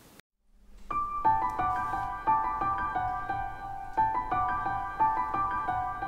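Background piano music starting about a second in after a short silence, single notes struck and left to ring.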